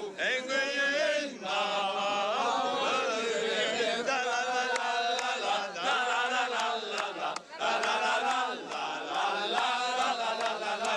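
A group of men singing loudly together in a rough, chant-like way, with a few hand claps.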